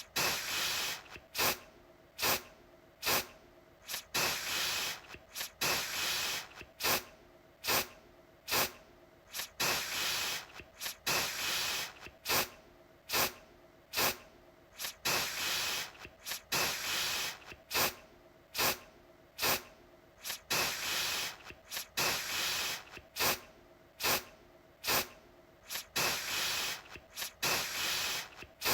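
Aerosol deodorant can spraying in repeated bursts: a hiss, some bursts very short and some lasting about a second, with brief pauses between.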